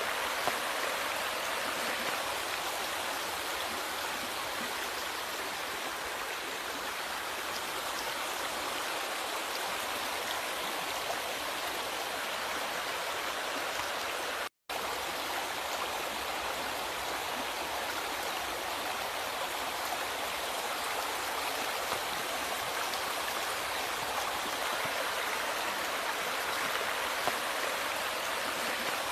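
River water flowing steadily over rocks, an even rushing with fine splashing detail. The sound cuts out for a split second about halfway through, then resumes unchanged.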